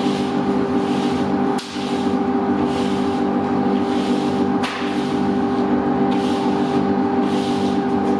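A machine motor running steadily with a constant hum, and two sharp clicks about one and a half and four and a half seconds in.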